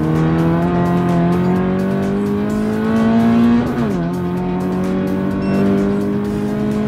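Toyota 86's 2.0-litre flat-four engine through a Fi valved exhaust, heard from inside the cabin while accelerating hard. The pitch climbs steadily, drops sharply on an upshift about four seconds in, then climbs again.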